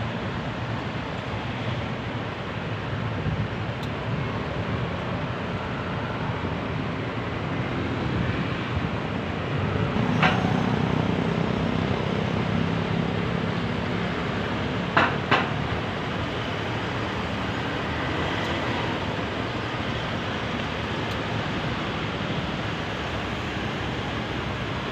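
Road traffic at a busy intersection heard from a motorcycle waiting at a red light: a steady wash of engine and road noise. A nearby engine grows louder about ten seconds in, and two quick sharp sounds come close together about fifteen seconds in.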